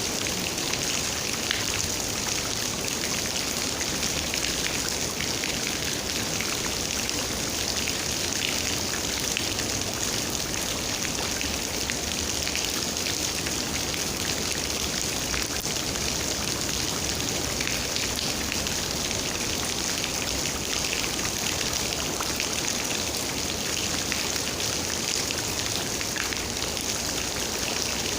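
Steady rain falling, a continuous hiss with the patter of many individual raindrops.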